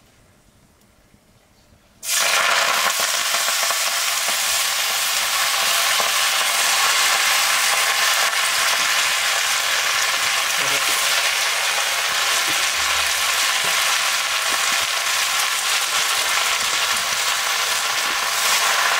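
Fresh mustard greens hitting hot oil in a wok and frying: a loud sizzle starts suddenly about two seconds in and then holds steady while they are stirred.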